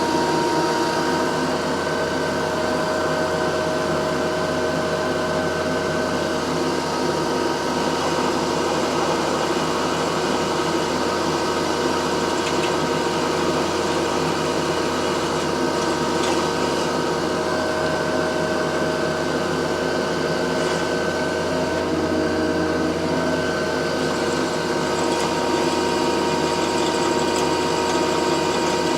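Power drill running steadily under load, drilling out a broken head stud from a Suzuki TS400 motorcycle cylinder.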